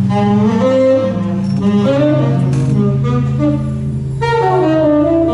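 A saxophone playing wavering, gliding phrases over a steady low drone, with a short break in the line about four seconds in.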